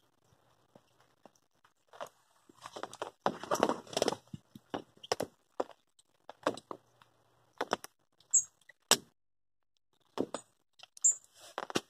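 Handling noise as a bivvy light is fitted to the inside of a fishing brolly's canopy: rustling of clothing and canopy fabric in short bouts, with scattered clicks and knocks and one sharp click about nine seconds in.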